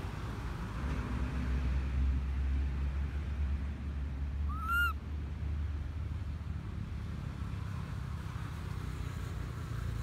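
One short coo from a baby long-tailed macaque, rising then falling in pitch, about halfway through, over a steady low background rumble.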